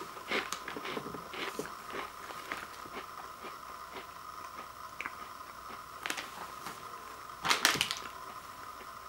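Plastic snack pouch crinkling and rustling as it is handled, with light taps. Near the end comes a louder crinkle and knock as a bowl of cookies is set down on the pouch on a wooden floor.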